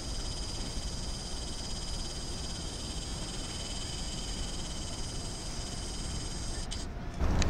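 Steady high-pitched insect trilling, several thin tones at once, over a low rumble. The trilling stops abruptly near the end, and a louder rush of noise follows.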